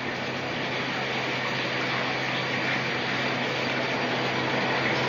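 Steady machine-shop noise: a constant low hum under an even hiss, as of factory machining equipment running, getting slightly louder over the few seconds.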